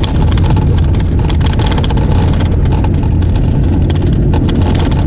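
Small car driving on an unsealed gravel road, heard from inside the cabin: a steady low engine and tyre drone with scattered clicks and rattles throughout.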